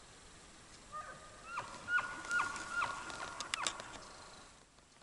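Bull elk bugling: a high held whistle broken by a run of short, sharply falling notes, from about a second in until shortly before the end.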